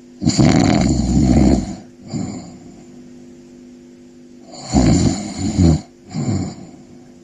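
Snoring in two slow cycles: each a long, loud snore followed by a short, softer one.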